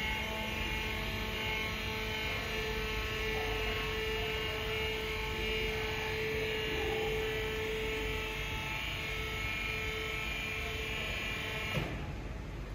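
Electric hydraulic pump motor of a telescopic truck loading conveyor running with a steady whine while it lifts the boom, then cutting off with a click about a second before the end.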